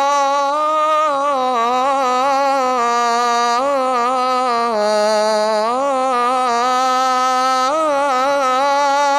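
A man's voice calling the adhan, drawing out the closing 'Allahu akbar' in one long, unbroken melismatic phrase, the pitch wavering in ornaments and gliding up and down between held notes.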